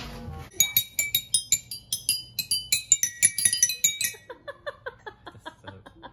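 Eight-bar rainbow toy xylophone played with ball-tipped mallets: a quick run of bright, ringing struck notes from about half a second in, then softer, lower notes toward the end.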